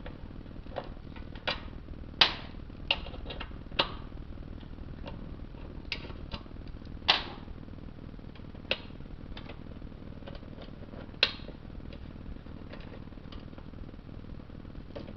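Scattered metal clicks and clinks of hand tools and small steel bolts as the 10 mm pan bolts are taken off a BMW 5L40E transmission pan. The clicks come at irregular intervals; a few louder clinks ring briefly, about two, seven and eleven seconds in. A steady low hum runs underneath.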